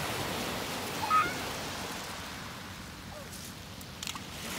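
Small waves breaking and washing over a pebble beach in a steady hiss. A short high-pitched cry rises above it about a second in, and a few sharp clicks come near the end.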